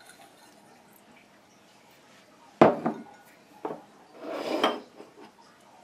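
A cup knocking and clinking against a glass mixing bowl as ingredients are tipped in. There is one sharp knock about two and a half seconds in, a couple of lighter taps, then a short rattling clatter about a second later.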